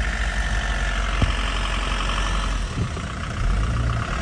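A motor vehicle's engine running steadily, a low rumble with a brief run of fast light ticking about halfway through.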